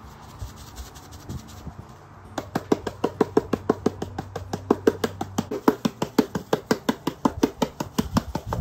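Bottle-type black-pepper grinder being twisted, its grinding head giving a fast, even run of clicks, about six a second, that starts a couple of seconds in.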